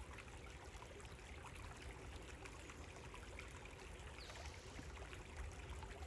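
Small creek babbling and trickling, faint and steady.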